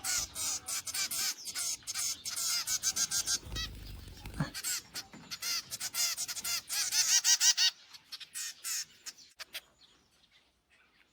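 Nestling birds giving rapid, high-pitched begging chirps while being hand-fed. The chirping is dense for about eight seconds, then thins to a few scattered calls.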